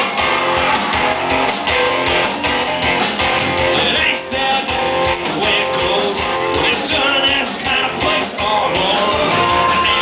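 Rock band playing live: strummed electric guitars over a steady drum beat, with a man singing.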